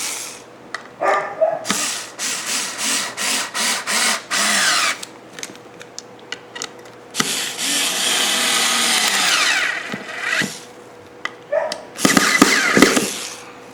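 Power drill driving galvanized screws into pine chair braces: a string of short trigger pulls, then one long run of about three seconds, and a last short burst near the end.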